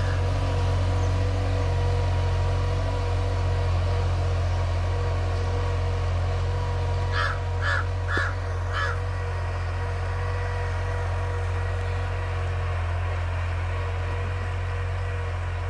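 Tractor diesel engine running at a steady idle. A crow caws four times, about seven seconds in.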